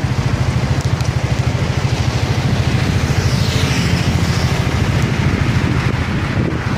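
Road traffic on a wet road, under a heavy fluttering rumble of wind buffeting the microphone. A motorcycle passes close about three to four seconds in.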